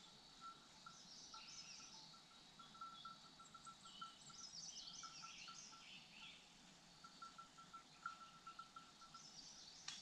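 Faint outdoor ambience: distant birds singing in short twittering phrases over a steady run of soft, evenly repeated pips, with a single sharp click near the end.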